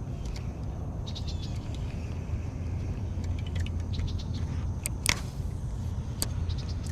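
A steady low motor rumble, swelling slightly toward the end, with birds chirping over it. There are a few sharp clicks, the loudest a knock about five seconds in.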